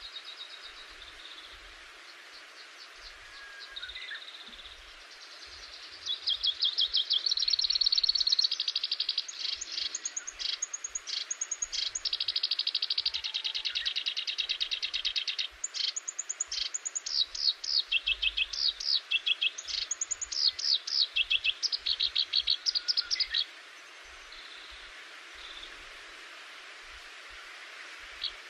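A songbird singing a long, fast trilled song of rapidly repeated high notes, starting about six seconds in and stopping a few seconds before the end. It sings over a steady background hiss, with a few fainter bird notes before it.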